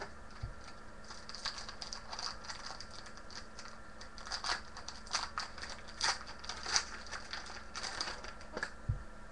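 2012 AFL Select Champions trading cards and their foil pack wrappers being handled: irregular crinkling, rustling and flicking as cards are shuffled through by hand. A soft bump about half a second in and again near the end.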